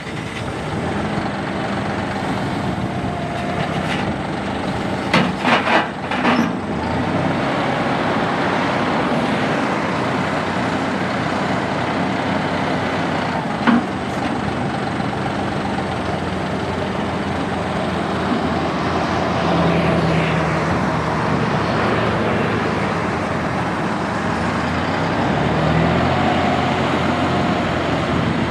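Three-cylinder turbo diesel engine of a John Deere 5055E tractor running steadily, its pitch shifting and gliding up a few times as the revs change. There is a brief cluster of sharp clatters about five seconds in and a single knock about halfway through.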